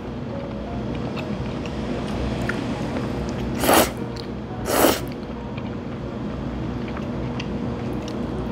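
Jajangmyeon noodles slurped in two short, loud bursts about a second apart, near the middle, with eating between them.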